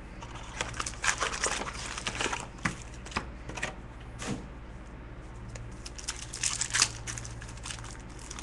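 Foil card-pack wrappers crinkling and tearing, and trading cards being handled, in an irregular run of crinkles and sharp clicks.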